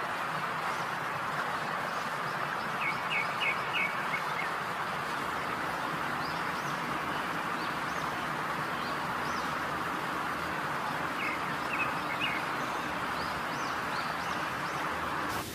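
Chicken frying in hot oil, a steady sizzle, with birds chirping in the background in two short bursts of quick chirps.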